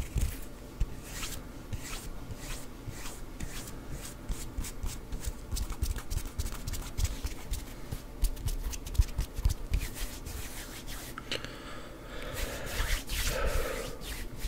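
Close-miked hand sounds: fingers plucking and flicking near the microphone, making many short clicks and soft low thuds. Near the end the palms rub together for a couple of seconds.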